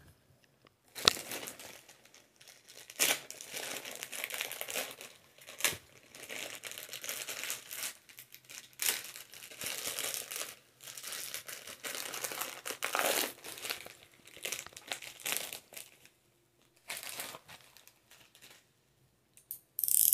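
Plastic courier mailer bag being cut and torn open, then crinkling and rustling as a boxed item is pulled out of it, in irregular bursts with a couple of sharp clicks.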